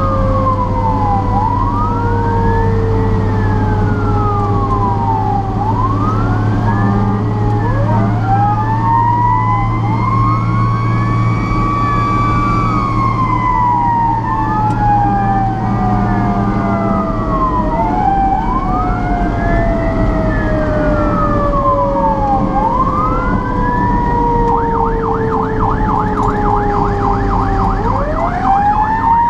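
Fire apparatus sirens on an emergency run, with several sirens overlapping. One wails up and down about every three seconds. Another winds up and then slowly falls in pitch over many seconds, and a rapid warble cuts in near the end, over the steady drone of the truck's engine.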